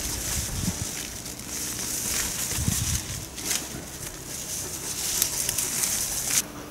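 Leafy vegetable plants rustling and crackling as they are handled and picked through by hand, with scattered sharp crackles and a couple of soft low thuds.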